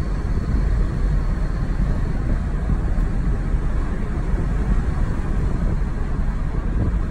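Steady cabin noise of a Mazda car driving on a wet road: an even low rumble of tyres and road, with no clear engine note.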